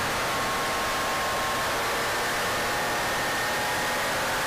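Air-cooled flat-six of a 1984 Porsche 911 running on track, heard from inside the cabin under a heavy hiss of wind and road noise, its faint whine rising slowly in pitch.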